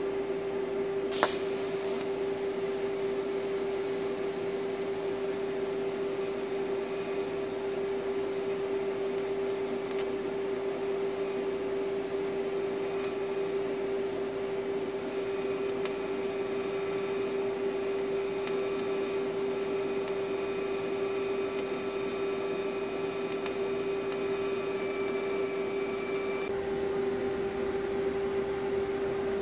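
TIG welding arc from an AHP AlphaTIG 200X: a sharp crack as the arc is struck about a second in, then a steady arc hiss that cuts off a few seconds before the end, over a steady hum.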